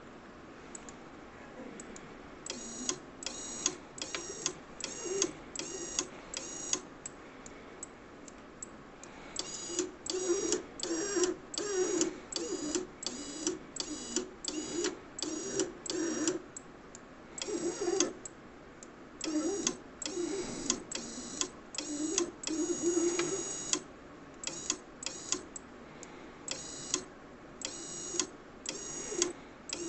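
PLC-controlled conveyor training unit running a program: a rhythmic series of short mechanical buzzes, about one and a half a second, in runs broken by brief pauses.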